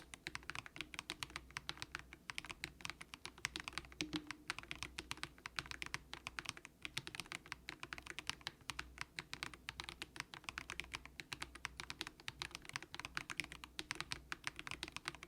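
Typing on a Monstargear Ninja87 plastic-case mechanical keyboard with light, low-force Haimu Sea Salt switches: a steady stream of rapid keystrokes, many per second.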